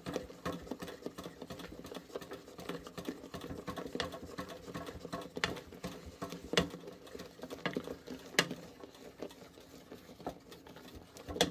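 Wooden spoon stirring and scraping thick, sticky melted marshmallow in a stainless steel saucepan: a run of irregular small clicks, with a few sharper knocks of the spoon against the pan. Under it there is a faint steady hum.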